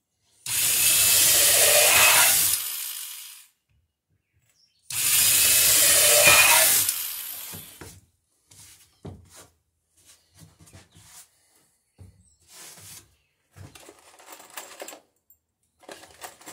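Corded electric drill boring through wooden boat bottom boards in two runs of about three seconds each. These are followed by short, quieter clatters and knocks as the drill is set down and small parts are handled.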